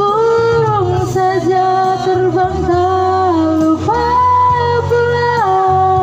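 A woman singing a slow song into a microphone, holding long notes that slide between pitches, over steady instrumental accompaniment.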